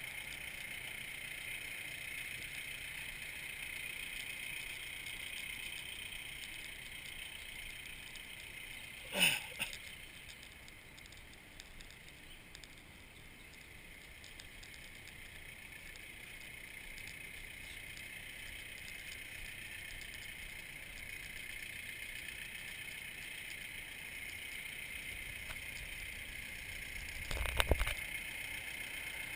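Steady outdoor background hiss with a faint high hum. About nine seconds in there is a brief loud sweep that falls in pitch, and near the end a short low thump.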